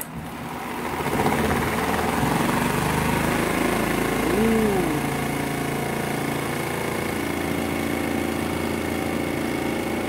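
Spin-dryer motor of a Pyle Pure Clean twin-tub portable washing machine starting up and spinning its basket. It builds over about the first second to a loud, steady whir with a high whine, and the machine vibrates hard enough to shift on the counter.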